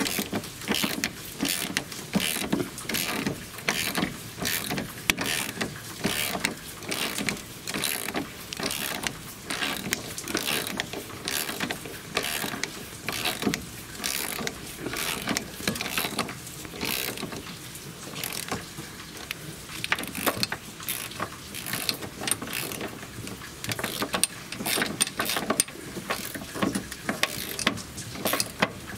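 Hand ratchet wrench clicking in repeated runs of strokes as the bolts holding the new rear beam bushings are tightened.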